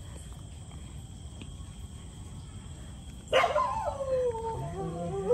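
A dog lets out one long cry about three seconds in, sliding down in pitch over a couple of seconds.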